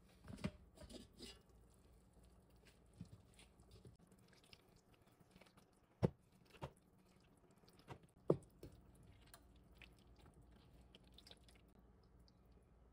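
Faint, scattered clicks and knocks of cookware being handled: an enamelware roasting pan gripped and moved, and broth scooped out with a plastic ladle. The sharpest knocks come about six and eight seconds in.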